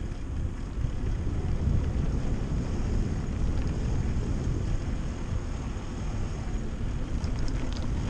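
Wind rushing over the microphone and the rumble of mountain bike tyres rolling over a rough, patched lane, a steady low noise.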